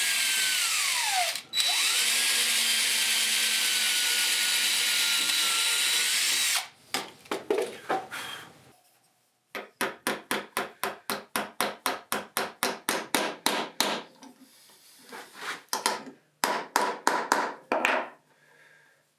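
Power drill running steadily at speed, its whine dipping once and gliding in pitch as the bit loads, while drilling small holes through steel; it cuts off suddenly about six seconds in. Then a string of rapid rhythmic hand-tool strokes, about four a second, in two runs with a pause between.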